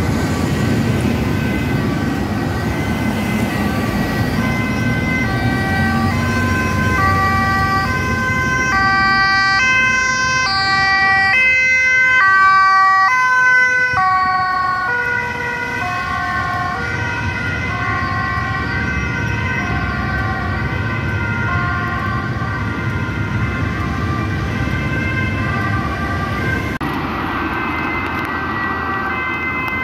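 Ambulance two-tone siren alternating steadily between a high and a low note, over road traffic noise. It is loudest about 13 seconds in, then its notes sit lower in pitch as it moves away.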